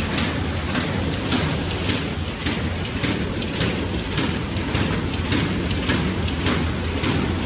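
Kraft paper bag making machine running steadily, a constant mechanical drone with a regular click a little under twice a second from its repeating cycle.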